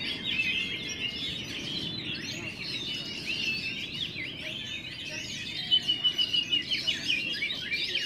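Many caged oriental magpie-robins singing at once, a dense tangle of whistles and chirps over a low background murmur. A little before the end, one bird gives a loud, fast run of repeated notes.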